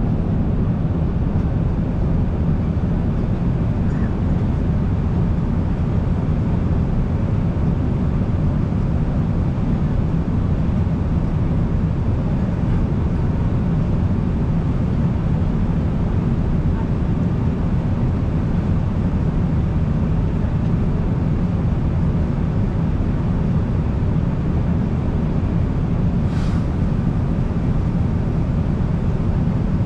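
Steady low drone of engine and air noise inside an airliner cabin in flight.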